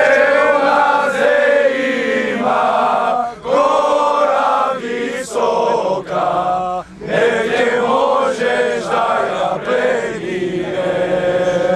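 A group of young men singing a Bulgarian folk song together in long-held phrases, with short breaks for breath between them.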